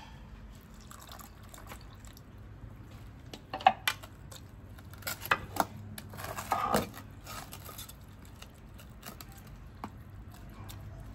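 Metal spoon scooping and stirring a wet pounded ginger, garlic and chili paste in a stainless steel pot: soft squelching with a few sharp clicks of the spoon against the pot, the loudest a little under four seconds in, and a longer wet squelch near seven seconds.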